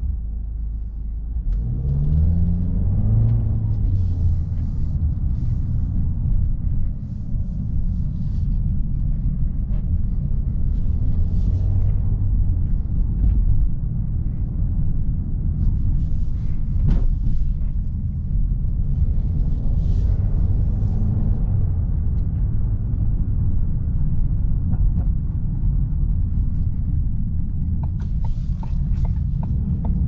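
Inside the cabin of a 2019 Ford Kuga: a steady low rumble of its petrol engine and tyres on the road, with the engine rising in pitch about two seconds in as the car accelerates away, and a few short knocks along the way.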